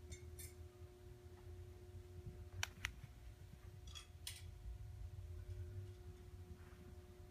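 Quiet room tone with a steady low hum, the rumble of a handheld camera being moved, and a few sharp clicks, the loudest about two and a half seconds in.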